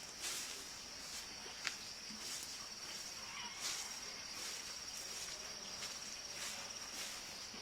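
Insects trilling in a steady high-pitched drone that swells louder now and then, with one sharp click a little under two seconds in.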